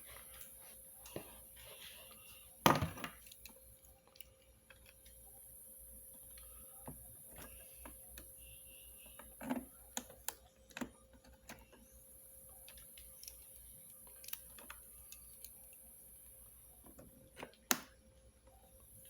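Scattered clicks and knocks of vacuum cleaner parts and tools being handled during disassembly. The loudest knock comes about three seconds in and another sharp one near the end, over a faint steady hum.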